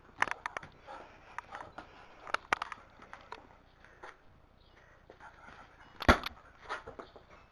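Dog playing with a soccer ball: scattered clicks and scuffs, with one louder thump about six seconds in.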